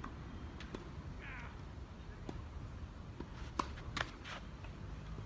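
Tennis ball struck by rackets and bouncing on a hard court during a doubles rally: a series of sharp pocks, the loudest two close together a little past halfway.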